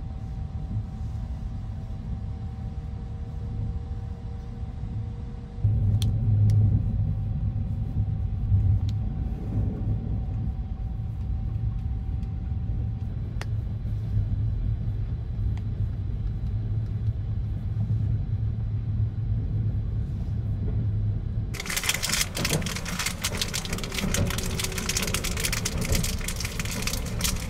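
Steady low rumble of the sleeper train running, heard from inside the compartment, with a few faint clicks. About 22 seconds in, loud crackling of a plastic food wrapper being opened starts and carries on to the end.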